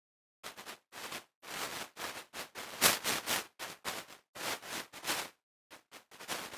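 Synthesized footsteps from a procedural Pure Data patch, triggered by smart insoles: a series of short bursts of noise, about two a second, each cut off to dead silence, the loudest about halfway through.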